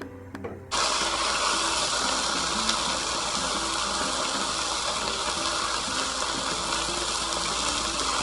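Loud frying sizzle from a hot pan, starting suddenly about a second in and holding steady: food hitting hot oil.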